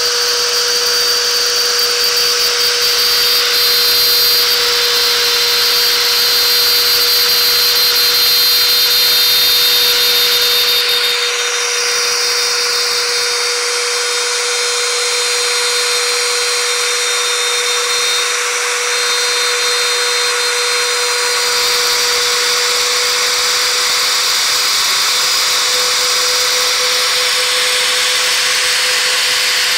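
Homemade CNC router's spindle running with a steady whine while its end mill cuts a shape out of a white plastic sheet. For about ten seconds partway through, the cutting noise thins out and changes, then returns to its earlier sound.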